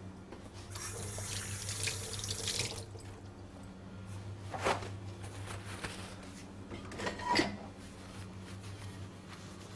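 Water running from a tap for about two seconds, then two short knocks a couple of seconds apart, over a steady low hum.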